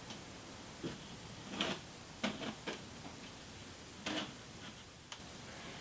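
Plastic filter frame being handled and slid into the slots of a Lee 100 mm filter holder: about six light plastic clicks and short scrapes at uneven intervals.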